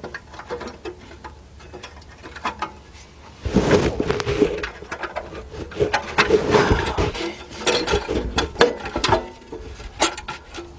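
Metal clicking, knocking and scraping from a catalytic converter exhaust clamp being worked loose by hand and tool. A few scattered clicks at first, then a busy run of clicks and scrapes from about three and a half seconds in.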